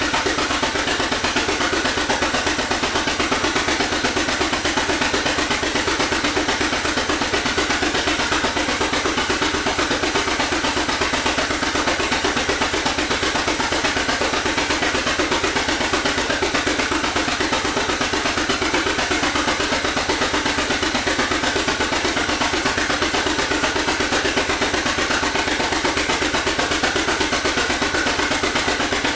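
The two-cylinder engine of a 1917 Avery 8-16 tractor running steadily under load, driving a machine by its belt pulley, with an even, rapid beat.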